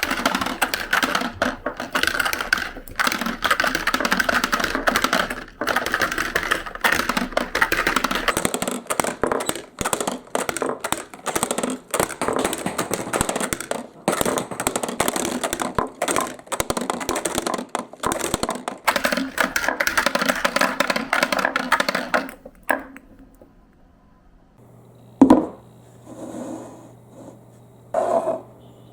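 Many marbles rolling and clacking down a plastic marble-run track, a dense rattle of fast clicks that stops suddenly about three quarters of the way through. After it come a few separate knocks and a faint low steady hum.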